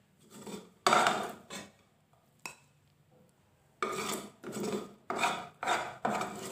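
A spoon scraping and stirring boiled dal in a glass bowl: a few separate scrapes in the first two seconds, the loudest about a second in, then a quick run of scraping strokes, about two a second, in the second half.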